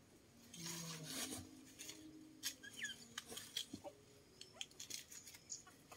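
Woven plastic sack and sweet potatoes rustling as they are handled, followed by a scatter of light clicks and ticks.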